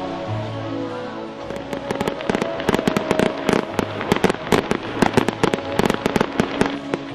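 Fireworks crackling: a dense, rapid run of sharp pops that starts about a second and a half in and thickens, over music with sustained notes and a low bass.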